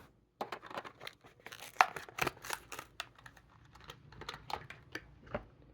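Hot Wheels package being torn open: cardboard card ripping and plastic blister crinkling in a run of quick rips and crackles, loudest about two seconds in.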